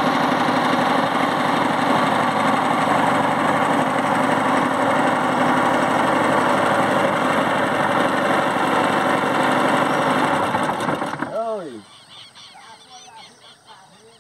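Small boat motor running steadily as the boat moves along the river, then shut off about eleven seconds in. Birds then call: a few falling calls, followed by faint high chirps.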